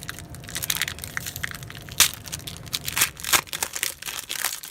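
Wrapper of a trading-card pack crinkling and tearing as it is opened by hand, a dense run of crackles with a sharp crack about two seconds in.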